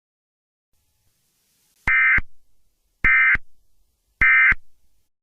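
Emergency Alert System end-of-message signal: three short, identical bursts of buzzy digital data tones, evenly spaced about a second apart, marking the close of the alert.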